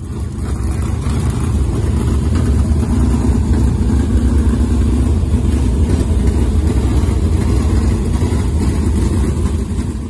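Loud, deep engine sound running steadily, swelling up over the first second or so.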